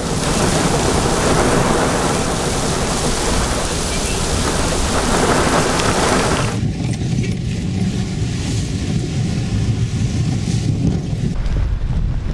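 Heavy desert downpour: dense rain hiss with wind gusting on the microphone and a deep rumble. About two-thirds in, the hiss thins and mostly a low wind rumble remains.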